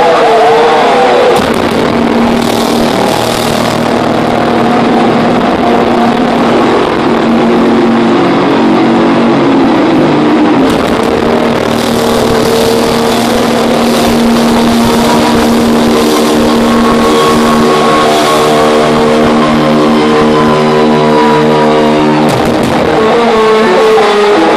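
Thrash metal band playing live through a loud concert PA, heard from the crowd: heavily distorted electric guitars and drums. Long held, ringing guitar chords stop abruptly near the end.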